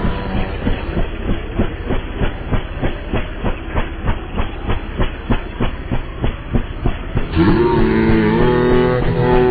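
A steady, fast clacking beat, about three to four strokes a second, in a low-fidelity recording of a song. About seven seconds in, a pitched tune with strummed guitar comes in over it.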